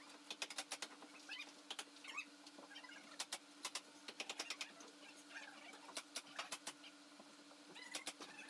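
Faint, irregular sharp clicks and taps, some in quick clusters, over a steady low hum, with small high chirps between them.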